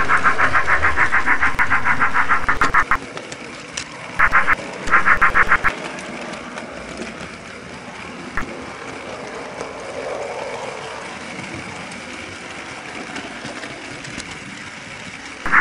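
Recorded steam-engine chuffing from an HO-scale Thomas locomotive's built-in sound unit: rapid, even chuffs that stop about three seconds in and come back twice, briefly, around four to six seconds. After that only a much quieter steady running noise remains.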